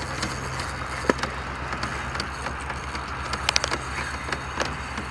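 Steady low throb of a small boat motor running, with scattered sharp clicks over it.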